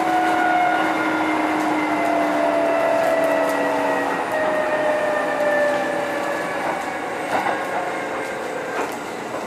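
Kintetsu 2430 series electric train heard from inside the car: the traction motors' whine slides slowly down in pitch over the running rumble, which eases a little as the train slows.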